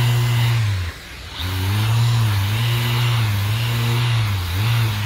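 Random orbital sander sanding body filler on a car panel: its motor hum cuts out briefly about a second in, then starts again and dips in pitch several times as it is pressed into the surface.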